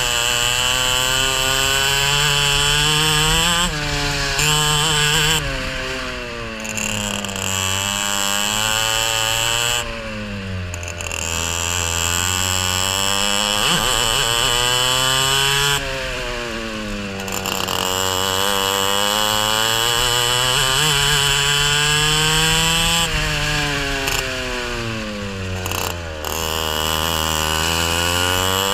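Racing kart engine heard close up from on board, rising steadily in pitch through each straight and dropping quickly as the driver lifts off for the corners, about five times over.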